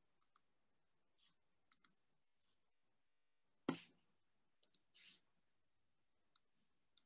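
Faint computer mouse clicks, in short pairs spaced a second or more apart, against near silence, with one louder knock about three and a half seconds in.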